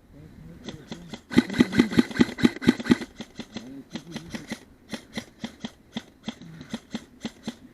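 Airsoft gun firing: a rapid burst of shots about a second and a half in, followed by a string of separate, irregularly spaced shots.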